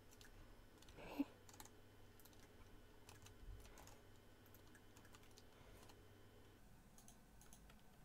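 Near silence with faint, scattered computer keyboard keystrokes and clicks over a low hum, and one short, louder sound about a second in.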